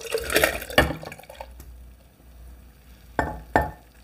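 Liquid pouring and splashing for about a second and a half, fading out, followed by two short knocks a little after three seconds in.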